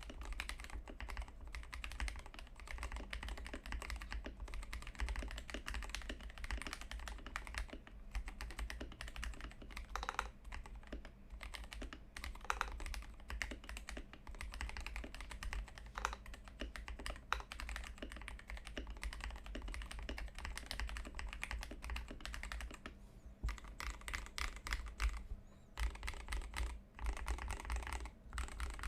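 Continuous typing on a Glorious GMMK Pro mechanical keyboard with factory-lubed Gateron Cap Milky Yellow linear switches, stock aluminium plate and XDA PBT keycaps: a fast, dense patter of keystrokes with a few brief pauses in the last part, over a low steady hum.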